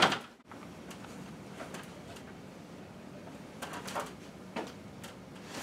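Stepladder lying on its side knocking as someone steps through its rungs: one sharp knock right at the start, then a few faint scattered taps.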